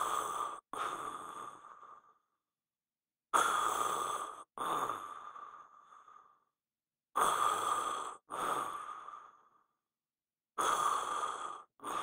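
Staged snoring of a sleeping man: four slow breaths, each a sharp in-breath straight into a longer out-breath that fades away. The breaths come about every three and a half seconds, with dead silence between.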